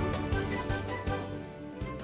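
Background music with a steady beat and bright melodic notes, fading out.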